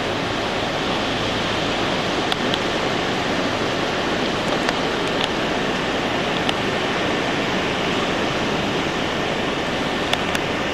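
Steady rushing outdoor noise of wind and sea on a camcorder microphone, with a few faint clicks.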